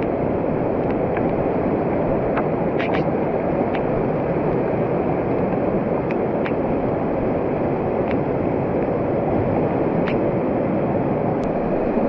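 A monsoon stream rushing and splashing down a rocky trail, a steady close-up roar of water, with a few faint clicks scattered through it.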